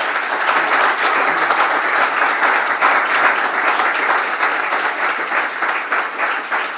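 Audience applauding: many people clapping at once in a dense, steady patter that thins slightly near the end.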